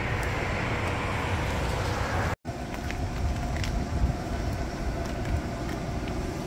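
Steady outdoor rumble and hiss like road traffic, broken by a brief dropout about two and a half seconds in. After it a steady machine hum holding a constant tone carries on.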